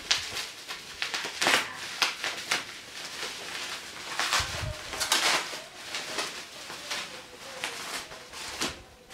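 Plastic bubble wrap crinkling and rustling in irregular crackles as it is handled and peeled away from a wrapped doll.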